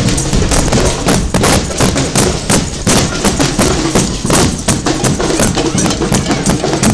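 Toy drums beaten unevenly by a group of children: many quick, sharp strikes with no steady beat.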